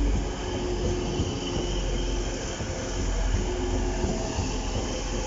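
Two coupled Class 185 diesel multiple units running past, their diesel engines rumbling under a few steady tones with wheels on the rails.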